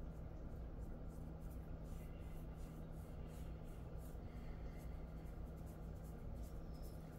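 Hands rubbing and scratching a dog's fur during a massage: faint, scratchy strokes repeating irregularly, over a steady low hum.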